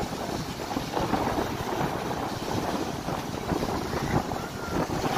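Waves breaking and washing up onto the shore, with wind buffeting the microphone.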